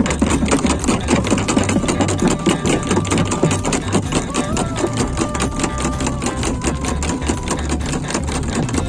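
Small engine on a fishing boat running with a fast, steady clatter.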